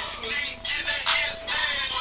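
A song ringtone with singing over music, played back from a phone.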